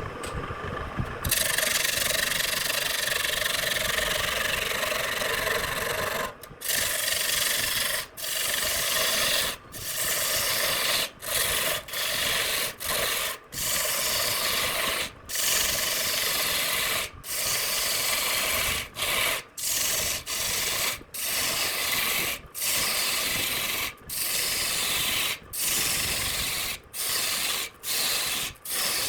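Wood being sanded with abrasive paper, a steady rasping scrape. From about six seconds in it comes in separate strokes, each about a second long, with short breaks between them.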